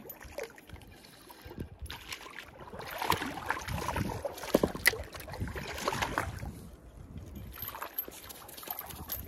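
Hooked landlocked salmon thrashing and splashing in shallow water at the bank as it is landed, the splashing heaviest in the middle.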